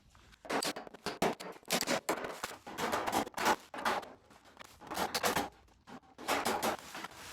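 Quick, irregular strokes of metal-working hand tools on a steel car quarter panel during dent repair, with a short pause about six seconds in.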